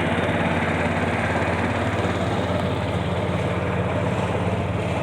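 Small fishing boat's engine running steadily at cruising throttle, with a constant low hum and water and wind noise over it.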